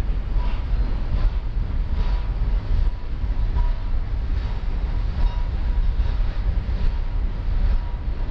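Freight train boxcars rolling past at close range: a steady low rumble of wheels on rail, with faint clacks recurring about once every second as the wheels cross rail joints.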